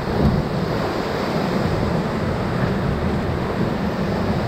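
Whitewater of the Ocoee River's Table Saw rapid rushing steadily around a raft.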